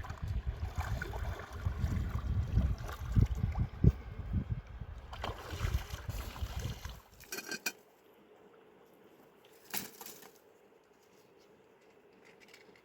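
Water sloshing and splashing close by, with a heavy uneven low rumble. About seven seconds in it cuts off suddenly to quiet room tone, broken by a single sharp knock a couple of seconds later.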